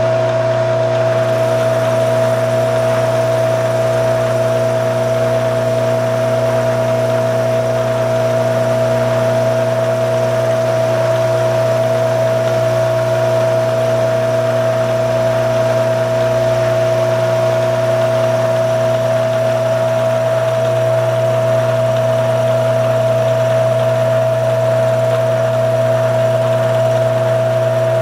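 Vertical milling machine running steadily at one pitch, its spindle turning a cutter over the throats of Weber IDA carburetor bodies, with a constant motor hum and whine.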